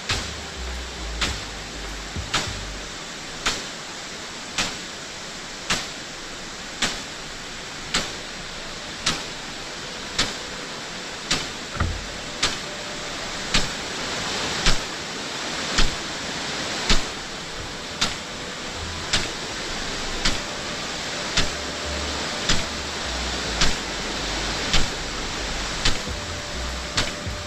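Impact sprinkler of an overhead irrigation system running: the swing arm strikes about once every second with a sharp tick over the steady hiss of the water spray. The hiss swells louder through the middle stretch.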